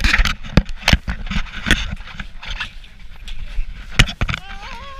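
Irregular thumps, knocks and scuffs of a camera being jostled against clothing and a plastic sled in the snow. A person's wavering yell comes near the end.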